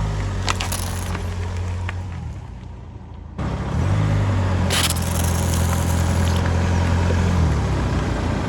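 Car engine running slowly, with a few sharp clicks in the first second and a loud crackling crunch about halfway through as an object is crushed under a tyre. The engine sound fades, then cuts back in suddenly about a third of the way in.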